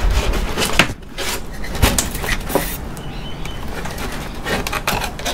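Plastic squirrel-cage blower wheel being wrenched and wiggled on its motor shaft inside the air conditioner's sheet-metal housing: clattering knocks and rattles, with a heavier knock about two seconds in. The wheel is stuck because the thread holding it has snapped.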